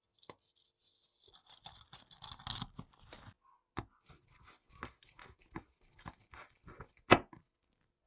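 Small metal scraping and clicking as a coil flint spring is fed into a Zippo lighter insert's flint tube and its slotted brass screw is turned home with a flat screwdriver. A thin high squeak lasts for the first couple of seconds, and one sharp click about seven seconds in is the loudest.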